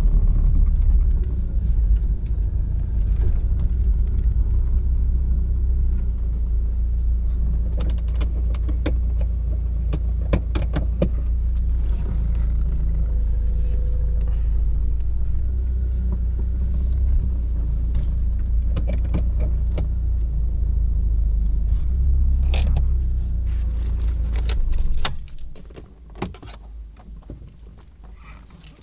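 Straight-piped mk1 Audi TT 180's turbocharged 1.8-litre four-cylinder engine idling with a steady deep rumble, then shut off about 25 seconds in. Scattered light clicks sound over it in the middle and just before the shut-off.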